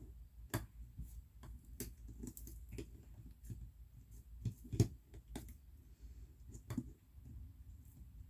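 Soft cloud slime being stretched and folded by hand, giving irregular small clicks and pops, the loudest a little under five seconds in.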